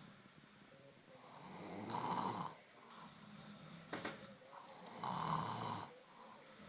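Someone snoring: two loud snores, each building up over about a second and peaking about two and five seconds in, with quieter breathing between. A short sharp click about four seconds in.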